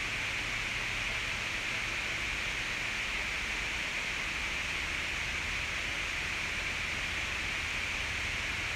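Steady, even background hiss with no distinct events standing out.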